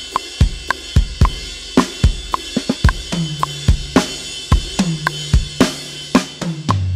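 Acoustic drum kit played live: a rock groove of bass drum, snare and hi-hat with cymbal hits, in steady time. About three seconds in, a low sustained note comes in underneath and drops lower near the end.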